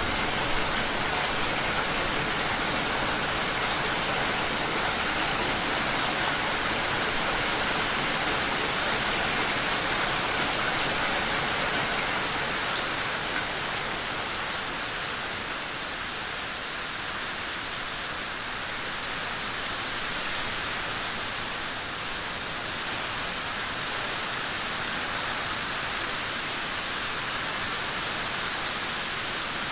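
Steady rain falling, an even hiss of drops that eases off a little about halfway through.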